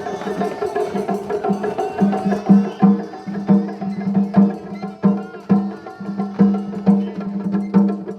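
Japanese festival hayashi music from the float's ensemble: taiko drums struck in a quick, steady rhythm under held flute notes.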